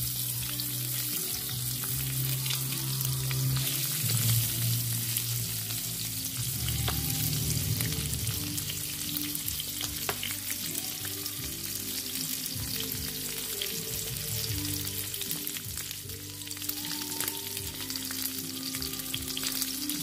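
Eggs fried inside onion rings sizzling steadily in olive oil in a nonstick frying pan.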